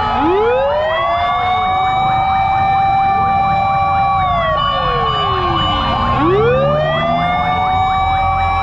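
Several fire truck sirens sounding together. The loudest wails up, holds high, then slides down and rises again about six seconds in, over a low rumble.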